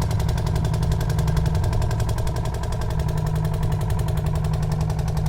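Small engine of a fish-pond aeration boat running steadily, with a rapid, even firing beat.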